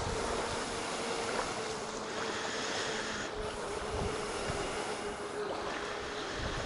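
Radio-controlled catamaran boat running across open water, heard from on board: a steady motor whine holding one pitch over a continuous rush and hiss of water along the hulls.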